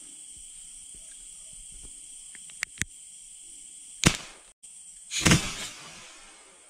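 Insects chirring steadily in the night, then a single sharp gunshot about four seconds in, followed a second later by a louder, longer burst of noise.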